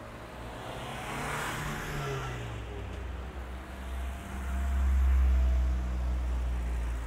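Motor vehicles passing close by on a road. Tyre and engine noise rush past about a second in, with the engine note falling, and then a deep engine rumble grows to its loudest about five seconds in.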